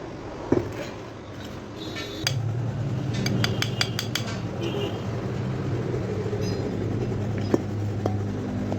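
Metal ceiling-fan parts clinking as they are handled during a bearing replacement, with a quick run of about seven light metallic taps about three seconds in and a few single clicks. A steady low hum starts about two seconds in.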